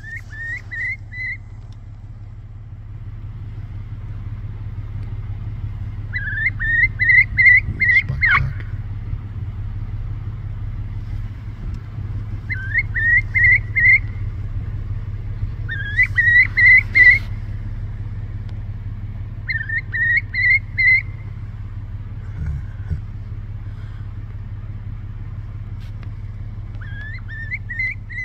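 A bird calling in runs of four or five short rising notes, a run every few seconds. Under it is the steady low hum of a car engine running, with a couple of brief knocks.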